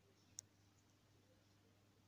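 Near silence: a faint steady low hum, with one sharp click about half a second in.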